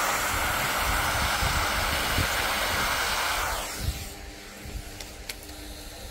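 Vacuum cleaner running with a crevice nozzle, sucking carbon-fibre dust and debris out of a freshly drilled mounting hole in a carbon-fibre roof; it stops about four seconds in, followed by a few light clicks.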